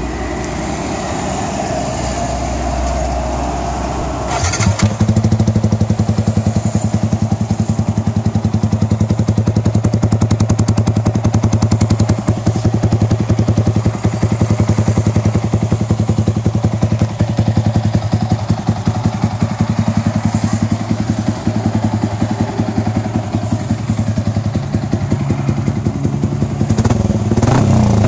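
Yamaha R15 V3's single-cylinder engine idling through a Daytona short stainless full-system exhaust with no dB killer. About four seconds in, the sound changes abruptly to a steady, evenly pulsing idle, which rises a little near the end.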